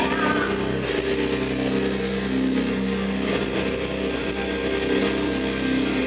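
Live band music led by electric guitar, with chords held steady through the passage.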